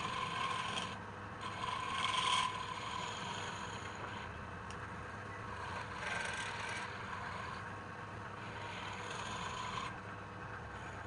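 Wood lathe running while a turning tool or abrasive rubs and scrapes against the spinning wood in uneven passes. The scraping dips briefly about a second in, swells loudest a little after two seconds, and eases off near the end.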